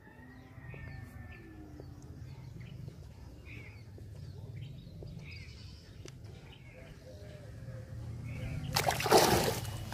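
Birds chirping now and then in the background over a low steady rumble, with a brief loud noisy burst about nine seconds in.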